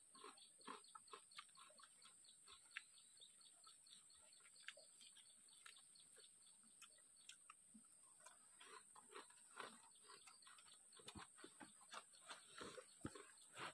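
Very faint eating sounds: crab shell cracking and chewing, heard as scattered small clicks and crackles that grow busier in the second half, over a faint steady high hiss.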